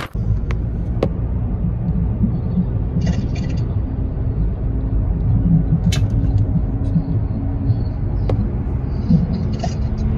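Steady low rumble of a car's engine and tyres at highway speed, heard from inside the moving car, with a few sharp clicks.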